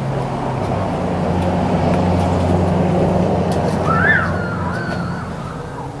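A motor vehicle's engine running, growing louder through the middle and then easing off, with a bird calling briefly about four seconds in.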